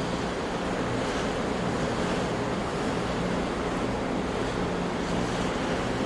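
Ocean surf: a steady, even rush of breaking waves, with no single crash standing out.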